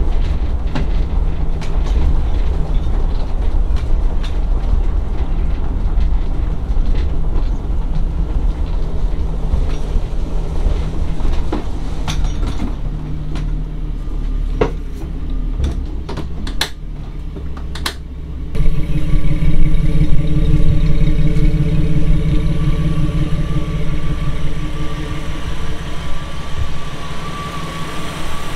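Jeep Cherokee XJ being driven, heard from inside the cabin: a low engine and road rumble with scattered clicks and rattles. About two-thirds of the way through it cuts to the engine idling steadily with the hood open.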